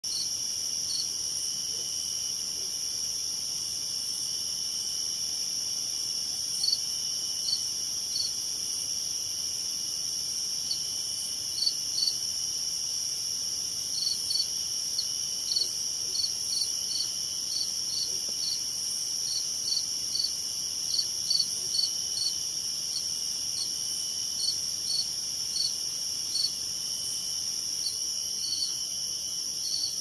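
Night chorus of crickets: a steady high-pitched trilling throughout, with short chirps repeating irregularly, about one or two a second, from about six seconds in.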